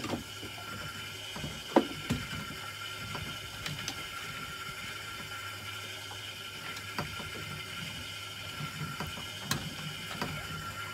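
A steady mechanical whirr with several faint clicks and knocks scattered through it.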